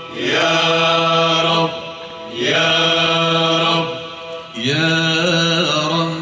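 Male choir singing in three long held phrases, with short breaks between them.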